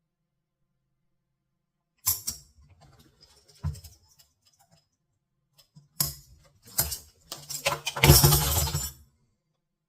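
Steel handcuffs clicking and rattling during a fast escape attempt: a sharp metal clatter about two seconds in, a few small clicks, then a busy run of clinking and rattling from about six to nine seconds.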